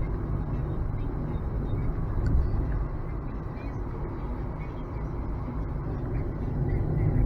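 Tyre and road noise inside the cabin of a moving electric Nissan Leaf: a steady low rumble.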